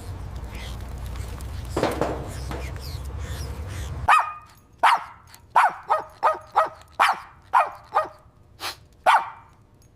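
A small animal's short, sharp yips, about a dozen in quick succession, roughly two a second, starting about four seconds in; before them a low steady rumble and one brief call.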